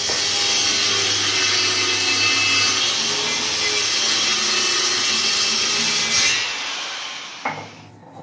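Electric woodworking power tool running against a laminated wooden board and throwing sawdust, a loud steady rasping noise with a low motor hum under it. It stops about six seconds in and winds down over the next second or so.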